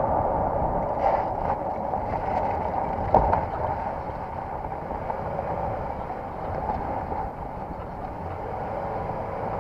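Lexus GX 460 driving with its KDSS disconnected: steady road and running-gear noise, with one sharp knock about three seconds in and a few light ticks about a second in. No loud repeated knocking from the suspension.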